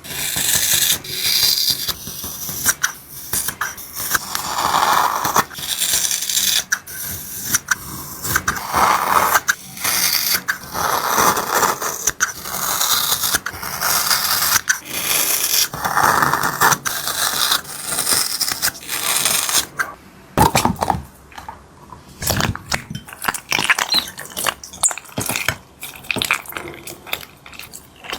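Hard objects being handled, with repeated scraping and clicking. Louder, denser stretches come every few seconds. The last third has sparser, sharper clicks.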